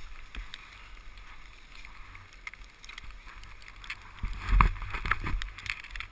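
Skis sliding and scraping over packed snow, with wind rumbling on the microphone. A short run of louder scrapes and knocks comes about four and a half seconds in.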